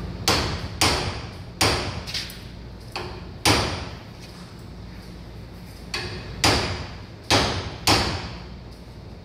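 Hand hammer striking a twisted railroad spike clamped in a steel bench vise: about ten sharp metal-on-metal blows in uneven groups, each with a short ring, with a pause of about two seconds midway.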